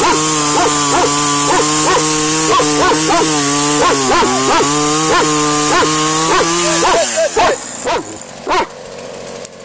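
Chainsaw running at high speed as it cuts through a log, its pitch dipping briefly under load midway and the saw falling quiet about seven seconds in. A dog barks and yips repeatedly over it.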